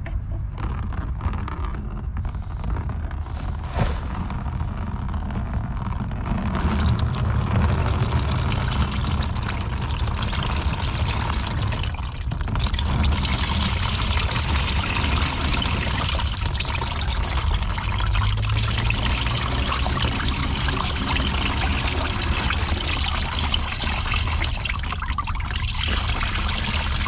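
Water pouring out of the drain hole of a Caterpillar 977 crawler loader's engine oil pan into a drain pan, the stream getting heavier about six seconds in. Water in the crankcase instead of oil: the mechanic takes it to mean water got in through the exhaust and down past the pistons, and that the cylinders are probably rusted.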